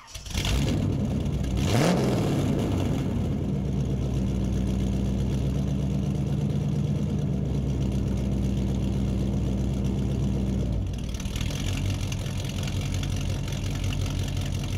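Car engine starting up and revving once, then running steadily. Its note shifts to a lower, rougher idle about eleven seconds in.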